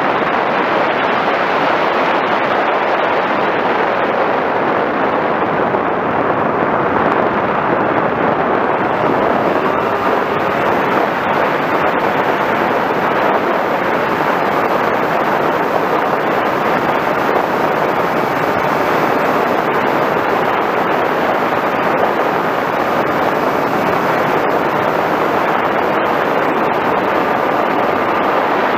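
Steady rush of wind over the onboard camera of an FPV Raptor radio-controlled plane in flight, mixed with its electric motor and propeller noise. A faint whine comes and goes.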